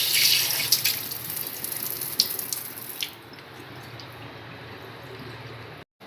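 Tap water running into a wash basin, shut off abruptly about three seconds in, with a couple of sharp splashes or clicks just before it stops. After that there is only quiet room sound, with a brief total dropout near the end.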